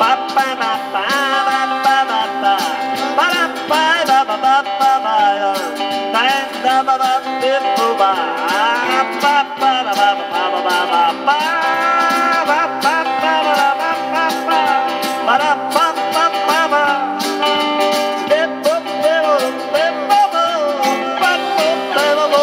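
Instrumental break of a folk song: acoustic guitar strummed steadily under a melody with bending notes, played on a harmonica in a neck rack.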